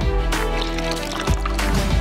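Background music with a strong bass and a steady beat.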